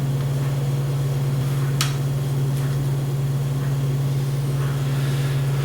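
A steady low hum, unchanging throughout, with a single small sharp click about two seconds in.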